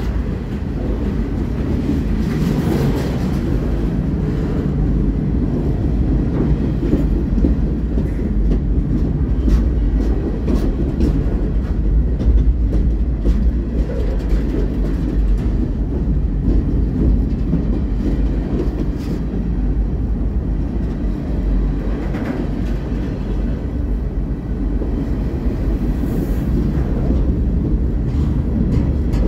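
Freight train of covered hoppers and open hoppers rolling past at close range: a steady, loud rumble of steel wheels on rail, with scattered clicks and clunks from the wheels and cars.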